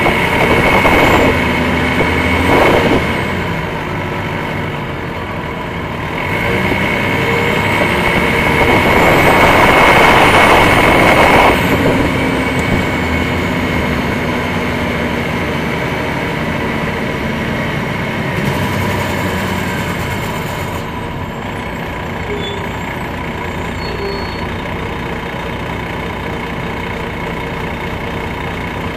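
The Detroit Diesel Series 60 diesel engine of a 2001 MCI D4000 coach, heard from on board while the bus drives. It grows louder in two surges in the first twelve seconds, the second lasting several seconds, then settles into a steadier drone.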